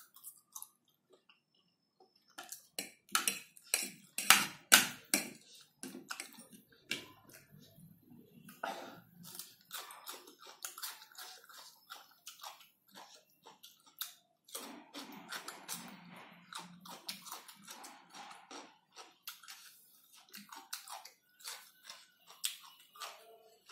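Close-up eating sounds: a person chewing a mouthful of instant noodles, with wet mouth noises and a run of sharp clicks and smacks, loudest about three to five seconds in, then biting and chewing a raw cucumber slice.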